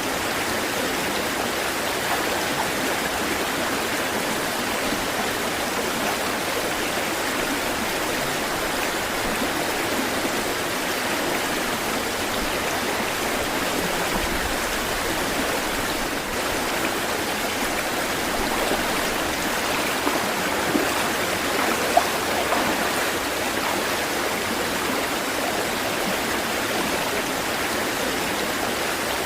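Water rushing steadily, an even, continuous wash of sound. A few brief sharp sounds stand out about two-thirds of the way in.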